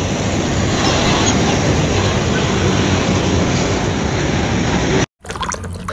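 Heavy fuel tanker semi-trailer truck driving slowly by, a steady rumble of engine and road noise that cuts off abruptly about five seconds in.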